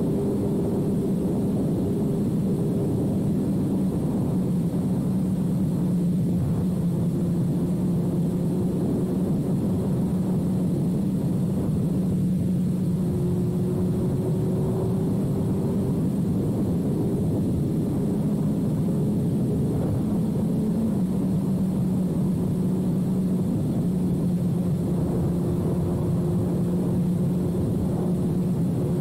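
2006 Suzuki GSX-R1000's inline-four engine running at a steady cruise through a full carbon/titanium Yoshimura exhaust, its note shifting only slightly in pitch a few times, with heavy wind rush over the microphone.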